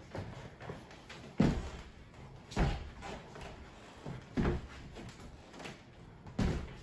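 Sneakers landing on a hardwood floor from jumps, squats and lunges: four heavy thumps about one to two seconds apart, with lighter footfalls between.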